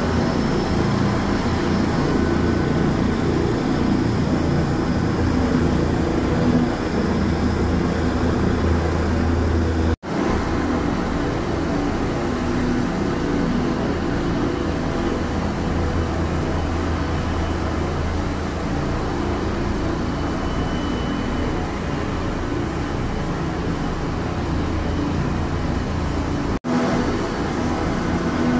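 Police AgustaWestland helicopter running on the ground, its turbine engines and rotor making a steady loud noise with a deep hum. The sound cuts out for an instant twice, about ten seconds in and near the end.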